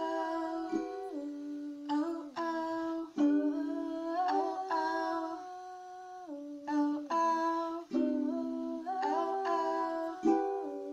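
Ukulele strummed in repeated chords, with a woman's voice humming a wordless melody over it.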